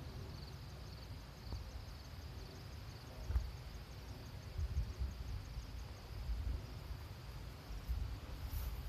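Wind buffeting the microphone in irregular low gusts, over a steady high, evenly pulsing chirping of insects.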